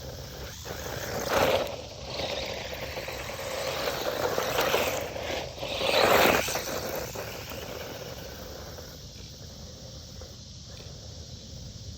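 Rlaarlo AM-D12 1/12-scale electric RC buggy running on a 3S battery over dirt, its motor and tyres getting loud in two close passes, about a second and a half in and again around six seconds, then fading as it drives off.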